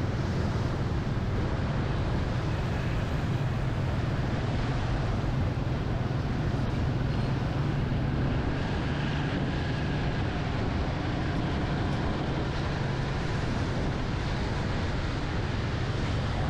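Steady road and wind noise from a motorcycle being ridden, with a low, even drone underneath and no change in pace.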